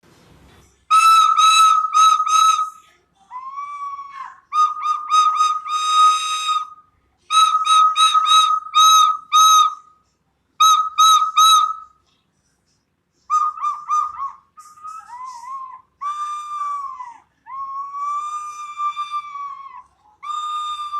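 African grey parrot whistling: runs of three to six short, clear whistled notes at much the same pitch, with some lower gliding notes. In the second half it gives longer drawn-out whistles, with brief pauses between phrases.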